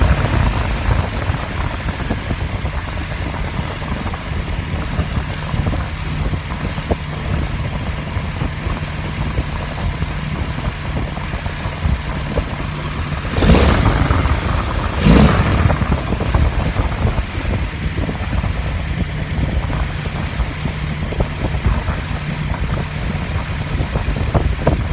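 An engine idling steadily, with two short, louder bursts about halfway through.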